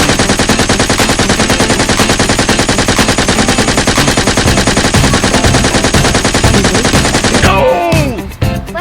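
Sustained rapid automatic gunfire, an even, fast rattle of shots that stops about a second before the end.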